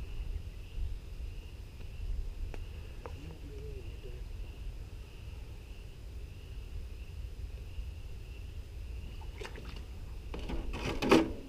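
Gold prospecting high banker running, a steady low rumble of its pump and water, with a thin steady high insect drone. A brief sharp clatter comes near the end.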